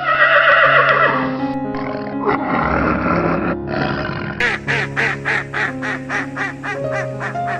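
A duck quacking rapidly, about five quacks a second, starting about halfway through, over background music with held chords.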